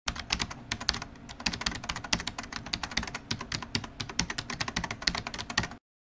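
Fast computer-keyboard typing, a dense run of key clicks several a second, which stops suddenly near the end.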